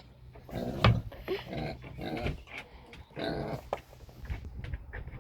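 A dog barking in several short bursts, the sharpest about a second in.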